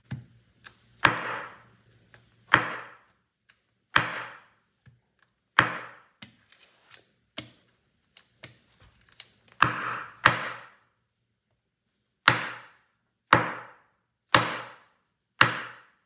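Microtech MSI folding knife, its blade clamped, swung so its spine strikes a padded mat on a wooden bench in a spine-whack test of its repaired ram lock. About ten sharp whacks come at uneven intervals, each with a short ringing tail, with lighter clicks between them; the lock holds.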